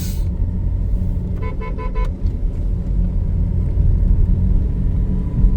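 Car rumbling along a road, heard from inside, with a quick run of about five short horn toots about a second and a half in.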